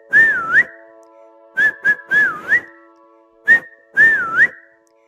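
Whistled melody in the instrumental break of a children's song: a short phrase of one or two quick notes and then a note that dips down and glides back up, repeated three times about two seconds apart over a steady held backing chord.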